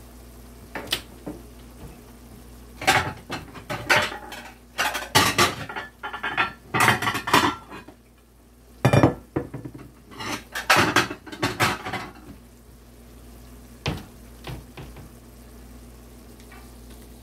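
Dishes and cutlery clattering: a run of clinks and knocks of plates and utensils being handled, mostly between about three and twelve seconds in, with one more knock later, over a low steady hum.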